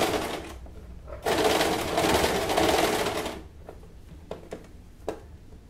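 Electric domestic sewing machine stitching through fabric in two runs: it stops about half a second in, starts again a moment later and runs for about two seconds. A few light clicks follow.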